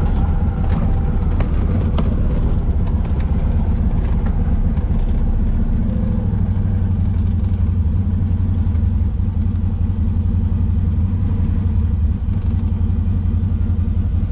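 Side-by-side UTV engine running steadily, a loud low rumble, as the machine crawls over a rocky trail. A few light clicks come in the first few seconds.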